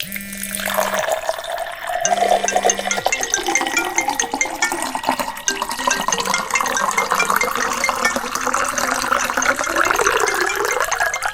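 Stock sound effects from the InShot video editor layered into a makeshift track: a dense noisy wash with many short high blips scattered through it. A low steady tone sounds twice in the first three seconds.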